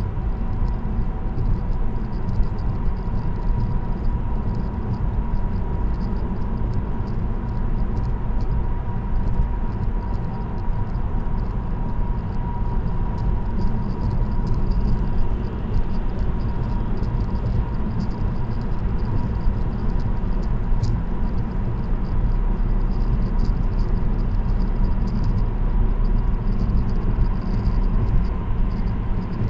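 Steady road noise from a car cruising on an expressway, heard inside the cabin: a constant low tyre and engine rumble with a faint steady hum.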